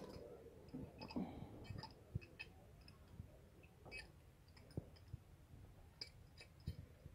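Faint, scattered clicks and a few soft knocks of metal hand tools being handled: a pipe wrench and threaded pipe fittings.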